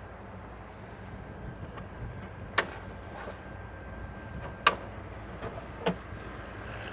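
An engine running steadily in the background, with three sharp clicks about a second or two apart in the second half.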